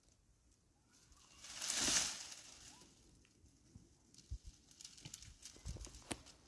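A rustling swell about two seconds in, followed by scattered light clicks and knocks.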